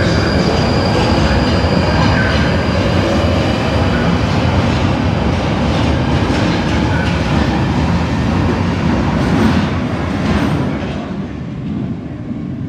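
London Underground Northern line 1995 Stock train pulling out of the platform and accelerating away into the tunnel, with a loud, steady running noise from the cars passing close by. The noise falls away over the last couple of seconds as the last car leaves.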